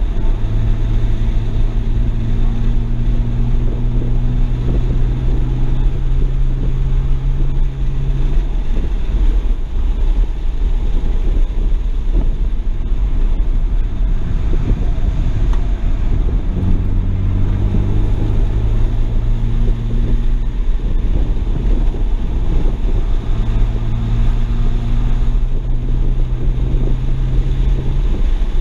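Heard from inside the cabin, a 2007 BMW 335i's twin-turbo straight-six runs on a race track with road and wind noise throughout. Its engine note holds steady for several seconds at a time and twice drops back into the tyre and wind rumble between stretches.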